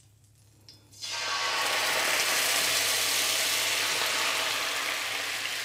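Coconut milk poured into hot coconut oil in a skillet, sizzling loudly. The sizzle starts suddenly about a second in and slowly dies down.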